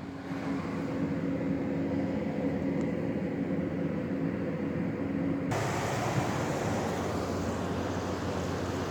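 LG window air conditioner running: a steady fan rush with a hum. About halfway through the sound changes abruptly to a brighter, fuller rush of air and the hum drops away.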